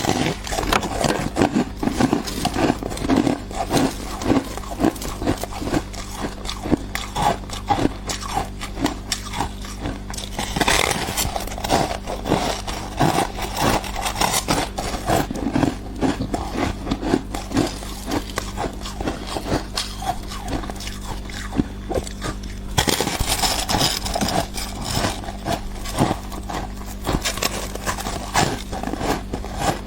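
Thick, crumbly slab of freezer frost ice being bitten and chewed close to the microphone: a steady run of crunches, about two to three a second, with harsher, brighter crunching near the middle and again near the end.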